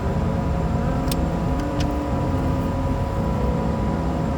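A motor running steadily with a low rumble and a constant hum, with a few light clicks about one and two seconds in.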